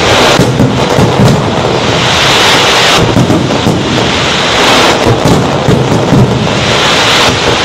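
Fireworks display: a dense, continuous barrage of low booms and crackling, with no pause between bursts.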